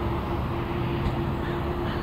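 Jet airliner engine noise heard from a distance: a steady rumble with a constant hum. A faint bird call comes near the end.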